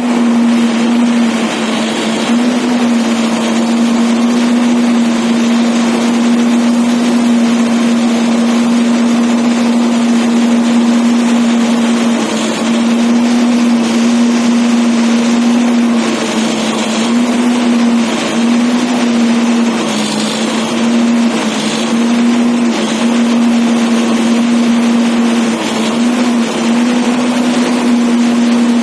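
ACE backhoe loader's diesel engine running steadily under work, a strong even drone with brief small dips in pitch every few seconds.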